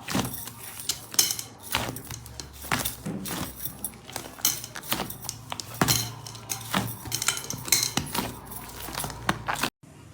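Slime being handled and pressed, with irregular sharp clicks and crackling pops several times a second; it cuts off abruptly near the end.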